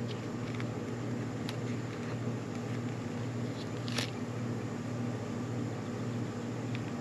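A steady low hum with faint handling noises of a clear plastic parts bag, and one sharp click about four seconds in.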